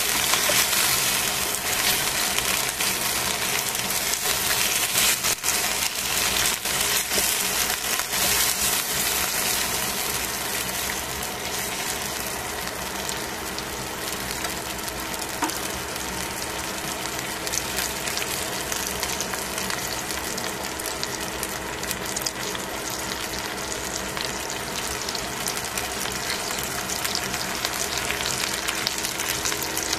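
Chicken wings sizzling in oil in a stainless steel frying pan, a steady crackling hiss. It is louder and busier for the first ten seconds or so, then settles to an even sizzle.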